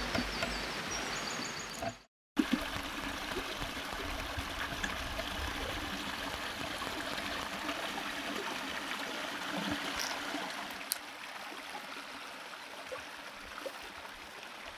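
Small forest brook trickling and splashing over stones, a steady rushing after a brief dropout about two seconds in.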